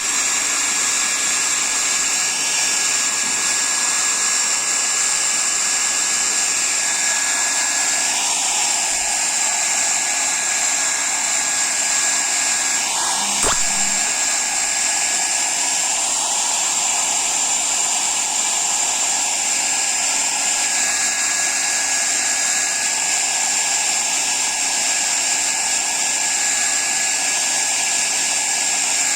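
Hair dryer running steadily on a dog's wet coat: an even rushing blow with a constant high whine. A short click about thirteen seconds in.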